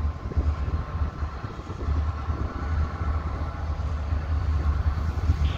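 Wind buffeting the microphone in uneven gusts, with a diesel locomotive's engine faintly running in the distance underneath.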